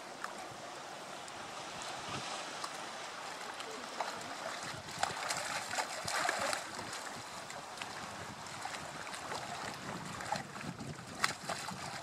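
Sea lions splashing as they play and chase in shallow water, over steady wash of surf among rocks and wind on the microphone. The splashing is heaviest about five to six and a half seconds in, and there is a sharp slap of water near the end.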